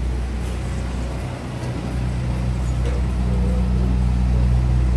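Steady low hum of a vehicle engine running, growing a little louder in the second half.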